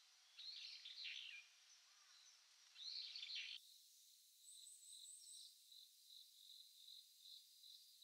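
Faint wild songbird calls in two short bouts of high chirps. Then, after a cut, an insect's regular pulsing chirp repeats at roughly two and a half pulses a second.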